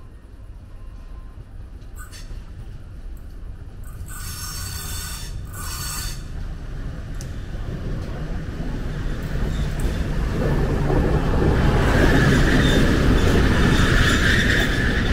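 T 478.1001 'Bardotka' diesel locomotive approaching and passing close, its diesel engine rumble growing steadily louder. A high steady squeal from the wheels joins in as it draws level, about eleven seconds in.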